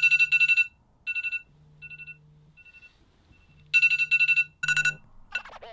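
Smartphone alarm ringtone: rapid high beeps in short groups. The first group is loud, the next few repeats fade away, and it comes back loud again past the middle.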